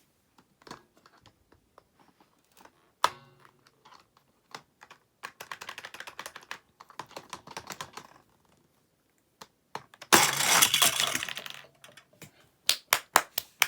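Plastic toy play set and toy car clicking and clattering: a sharp knock about three seconds in, a stretch of rattling, a louder burst of clatter around ten seconds in, then quick clicks near the end.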